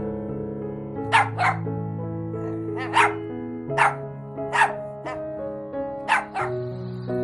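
A dog barking in short, sharp yaps, about seven in all, some in quick pairs, over background music with held notes.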